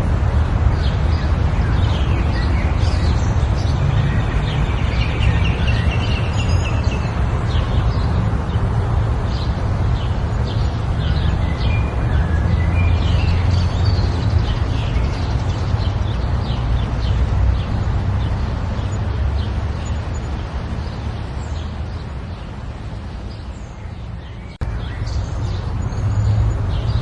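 Wind buffeting the microphone with a steady low rumble, while birds chirp and call again and again over it; the sound breaks off sharply and restarts near the end.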